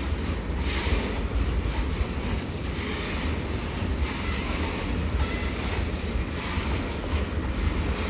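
Freight train of oil tank wagons rolling past: a steady rumble of steel wheels on rail, with a couple of faint, short wheel squeals.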